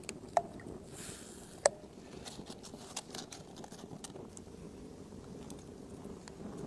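Ingredients, among them half a red onion, dropped into a pot of water: two sharp plops, each with a short ringing tone, about half a second and a second and a half in, followed by light scattered pattering.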